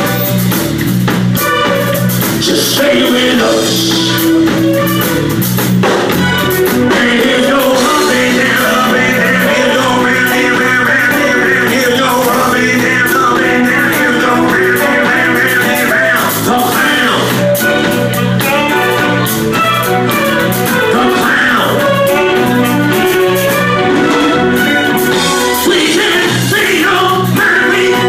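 Live band playing loud music with a singer, over drums and a repeating bass line.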